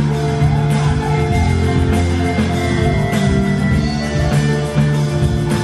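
Live band playing a rock-style song, with guitar and bass carrying sustained notes over drum hits and no singing.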